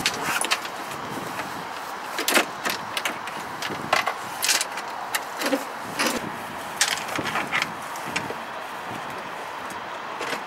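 Canvas boat canopy and its folding frame being handled in a storage compartment: fabric rustling with scattered irregular clicks and knocks of the frame and fittings.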